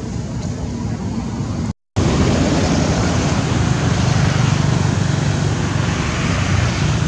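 Steady, loud rumbling outdoor background noise with no distinct events, like distant road traffic. It cuts out completely for a moment about two seconds in and comes back a little louder.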